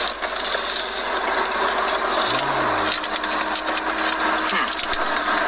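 Steady rushing noise in a car's cabin, with light rustling of a paper burger wrapper as a burger is bitten into.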